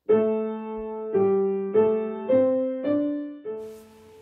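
Piano music: a slow phrase of about six notes, each struck and left to ring, fading out near the end.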